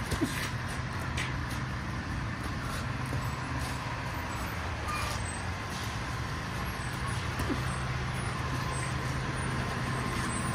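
Heavy diesel truck engine running steadily, a low even drone, with a few faint knocks over it.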